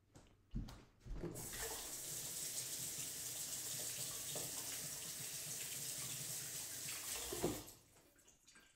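Kitchen sink tap running steadily into the sink for about six seconds, starting about a second in and shut off near the end.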